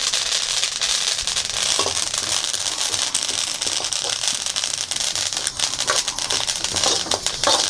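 Flaxseeds dry-roasting in a kadai, crackling steadily with many fine pops as they are stirred with a ladle. The crackling shows the seeds are still roasting; it stops once they are fully roasted.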